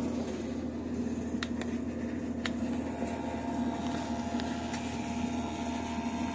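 Steady mechanical hum from a Testo 310 combustion analyzer's sampling pump, running through its 30-second start-up zeroing in fresh air. A few faint clicks come through, and a fainter higher hum joins about three seconds in.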